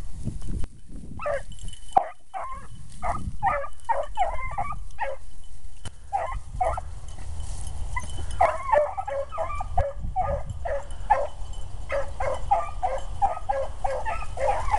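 Rabbit hounds baying in short, quick barks as they run a rabbit's trail. The barks pause for a moment about halfway through, then come back thicker and faster, with more than one dog giving voice at once.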